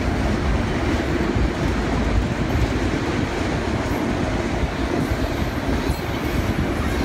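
Empty autorack freight cars rolling past on the rails: a steady rumble and rattle of steel wheels and car bodies.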